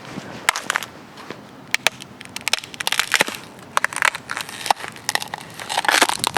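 Thin creek ice crunching and cracking under a foot pressed onto it, with many sharp, irregular snaps and a denser crunch near the end.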